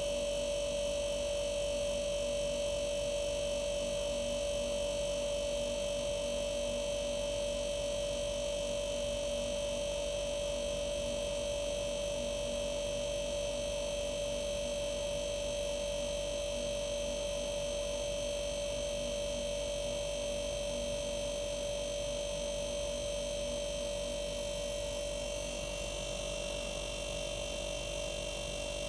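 Arçelik 5233 refrigerator compressor running with a steady hum and a strong, constant tone.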